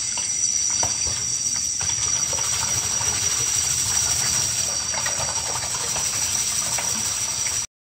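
Kitchen tap running into a plastic bowl of rice in a stainless steel sink, while a hand swishes the grains through the water to rinse them, with faint scattered clicks. The sound cuts off abruptly near the end.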